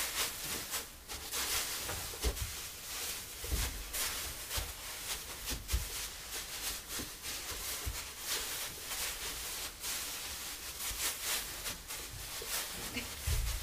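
Loose wood shavings rustling and crunching as feet shuffle through them and spread them over a coop floor, with scattered soft footstep thumps.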